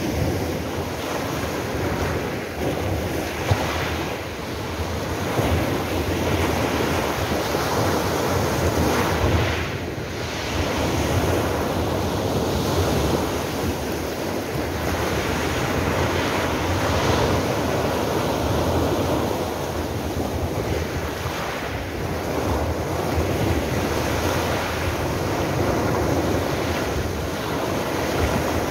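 Small sea waves breaking and washing up a pebble beach: a continuous rushing surf that swells and eases every several seconds. Wind buffets the phone's microphone underneath it.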